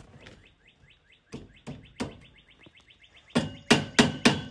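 Metal being struck repeatedly on the steel frame of a basketball hoop during assembly. A quick run of light ticks gives way to sharp knocks, then loud blows about three a second that leave the metal ringing.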